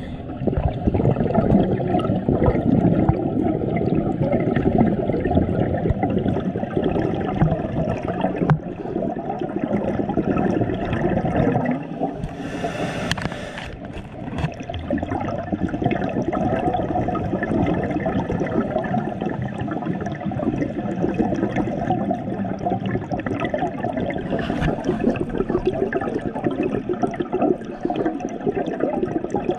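Muffled underwater gurgling and bubbling from a scuba diver, heard through an underwater camera, churning on without a break. A brief hiss comes near the middle.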